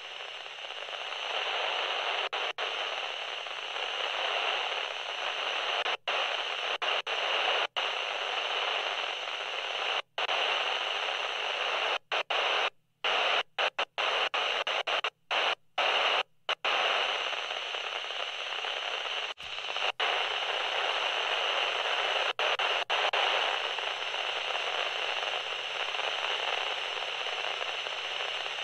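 Steady static hiss that cuts out for a split second again and again, with a cluster of quick dropouts about halfway through.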